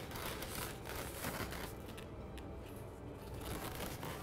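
Latex twisting balloons being handled and fitted together: rubbery rubbing and rustling with scattered small clicks, sparser in the middle.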